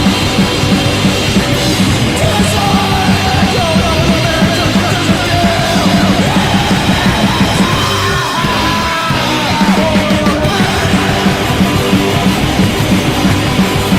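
Punk rock band playing a rehearsal demo: drum kit and amplified instruments with a yelled vocal. The low end drops out in a short break just past the middle, then the full band comes back in.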